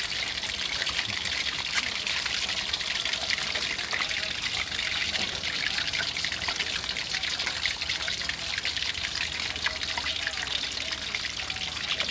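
Queenfish fillets frying in hot oil in a wok over a low flame: a steady sizzle peppered with many small crackles and pops.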